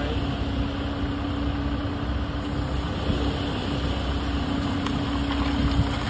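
An engine running steadily at idle, with a constant low rumble and an even hum.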